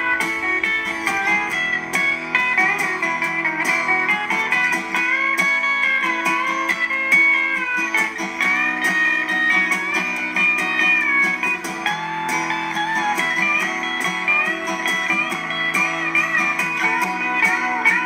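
Background music: an instrumental guitar passage of a song.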